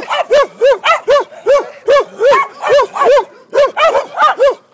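A dog barking angrily and repeatedly, about three sharp barks a second in a steady run that stops just before the end.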